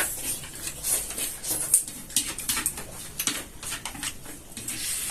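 Close-up eating sounds: noodles being slurped and chewed in a string of short, irregular wet smacks, with light clicks of utensils against a plate.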